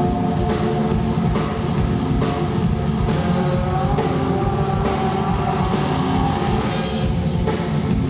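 Live rock band playing loud and steady, with a drum kit and electric guitar.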